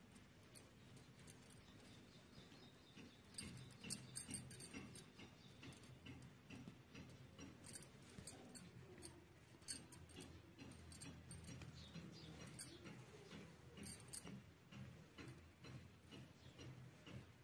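Faint, scattered light clicks and soft rustling from a hand playing with a kitten on a fleece blanket, with small clusters of sharper ticks.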